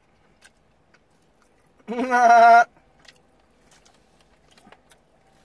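A man's voice making one short held note, like a hum or sung 'mmm', about two seconds in, with faint clicks of chewing around it.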